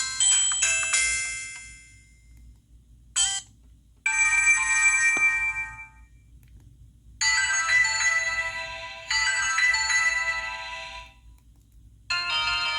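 Samsung SGH-T629 phone playing a run of different polyphonic ringtones, each snippet lasting a second or two before stopping, with short gaps between. One is only a brief blip.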